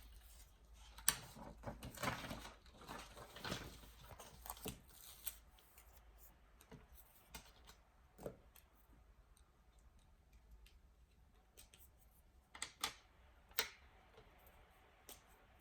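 Small desk-work sounds while studying: scattered light clicks and taps, with a stretch of rustling early on, and two or three sharper clicks near the end.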